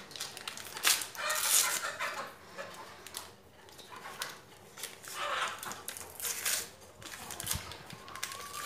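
Paper sachet of baking powder crinkling and tearing open in the hands, in several short irregular rustling bursts, the loudest about a second in.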